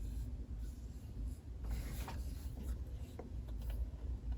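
Hands turning and handling an assembled LEGO model: plastic rubbing and scraping, with a few light clicks, over a steady low hum.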